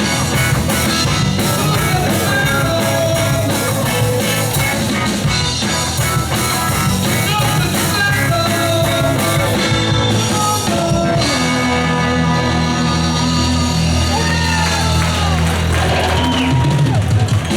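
Live rock band playing with drum kit, electric guitar and singing. About eleven seconds in, the busy drumming drops away and held chords ring on, with a few notes gliding in pitch over them.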